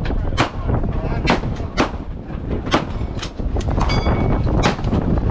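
Girsan MC P35, a 9mm Hi-Power-pattern pistol, fired in a slow string of about eight shots, roughly half a second to a second apart. A brief ringing tone follows one shot about four seconds in, over a steady low rumble.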